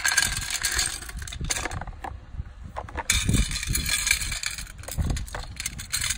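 Small hard pieces clattering out of a toy dump truck's tipped bed into a metal tin, then rattling and clinking in the tin as a hand stirs through them, in two bursts about three seconds apart.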